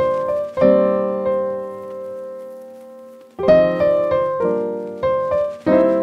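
Background piano music: a slow phrase of struck chords, each ringing and fading, with one long held chord in the first half.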